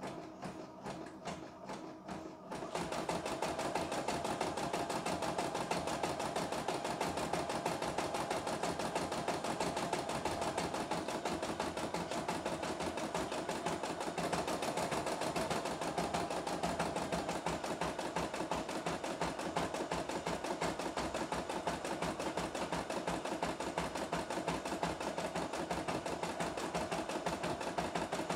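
CNY E960 computerized embroidery machine stitching. It is quieter for the first couple of seconds, then about three seconds in settles into a louder, steady run of rapid needle strokes.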